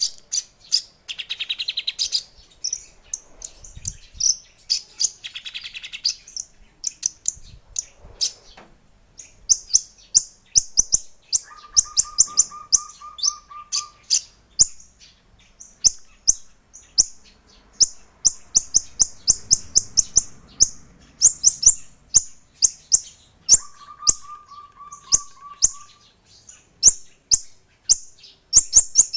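Caged songbird calling almost without pause: short, sharp, high-pitched chirps in rapid series. A lower, evenly pulsed trill of about two seconds comes twice.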